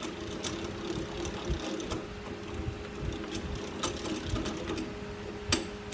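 Metal lathe running with a steady whir, with a few light clicks and one sharper click near the end.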